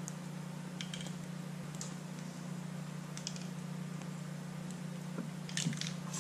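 Faint, scattered clicks and scuffs as a tape measure is stretched and held over gravel, with a small cluster of them near the end, over a steady low hum.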